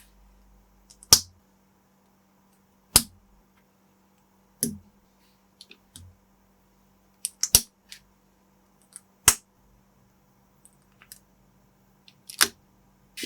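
Plastic LEGO-compatible building bricks being snapped together by hand: sharp single clicks every one to three seconds, with a few lighter taps and ticks between.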